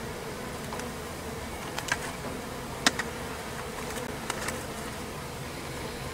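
A honeybee colony buzzing steadily in and around an opened stacked-box hive. A few sharp clicks come through the buzz, the loudest about three seconds in.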